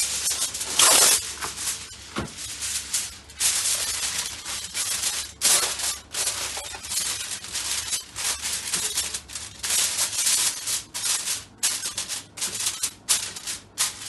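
Aluminium foil rustling and crinkling as it is pulled from the roll and pressed and crimped around the edges of a casserole dish, in irregular crackling bursts, with a louder rip about a second in.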